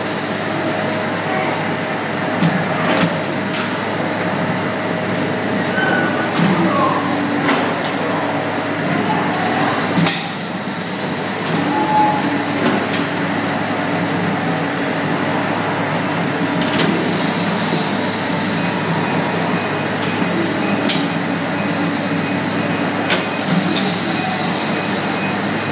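Olive mill machinery running with a steady hum as the hydraulic arm spreads ground olive paste onto the stack of round press mats, with a few sharp knocks and clanks here and there.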